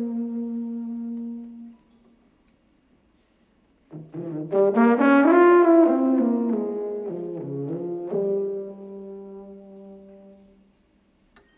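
Unaccompanied solo tuba: a held note fades away, then after a pause of about two seconds a new phrase enters, moves up and down through several notes, and ends on a long held note that dies away.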